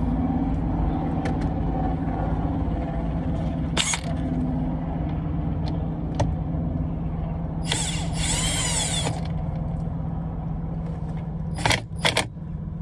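Small clicks and knocks of hand work on a car's steering wheel over a steady low hum. There is a burst of rustling noise lasting about a second and a half, about eight seconds in, and two sharp clicks near the end.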